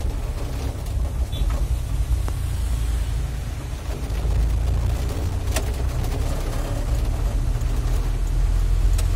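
Steady low rumble of a vehicle's engine and tyres on a wet road, heard inside the cabin, with a light hiss over it and a few sharp clicks.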